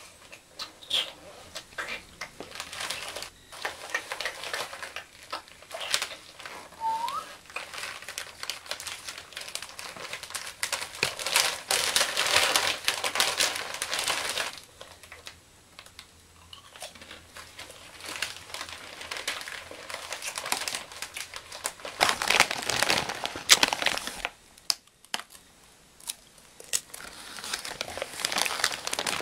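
Crinkly plastic chip bag being handled, opened and rummaged, with irregular crackling rustles that are heaviest in two long stretches, about halfway through and again later. A short rising squeak sounds about a quarter of the way in.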